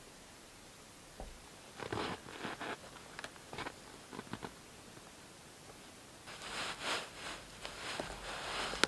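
Soft rustling and crunching of clothing, gear and snow being handled, in short clusters, then denser rustling from about six seconds in as cord is tied around a wooden tarp pole.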